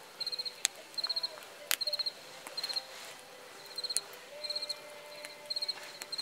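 A cricket chirping, short trills of a few pulses repeating a little more than once a second. Now and then a sharp crack pops from the burning wood campfire.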